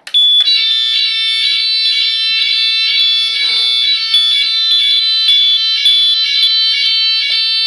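Building fire alarm sounding the general evacuation signal. It starts abruptly and holds a loud, shrill electronic tone made of several high pitches, with a faint regular pulsing.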